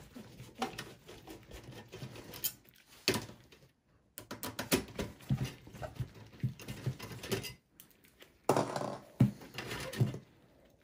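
Screwdriver and gloved hand working the front USB port board and its cable loose from a desktop PC's steel chassis: irregular clicks, taps and scrapes of metal on plastic and sheet metal, with a louder clatter of the board coming free near the end.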